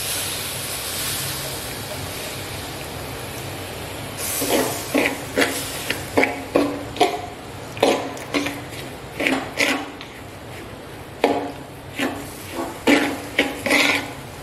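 Water poured from a metal pot into a pan of roasted semolina, a steady rush for the first few seconds. Then a metal spatula stirs the mixture, scraping and knocking against the metal pan in short strokes about one or two a second.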